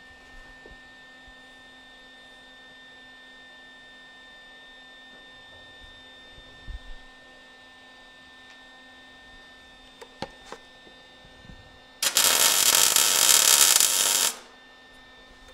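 Steady low hum with a few light knocks, then about twelve seconds in a MIG welder's arc runs for about two seconds as a piece is welded onto a chrome bumper.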